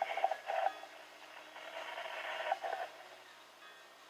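NOAA Weather Radio broadcast heard through a weather radio's speaker: the tail of the announcer's voice, then a stretch of hissy radio noise that fades out about three seconds in.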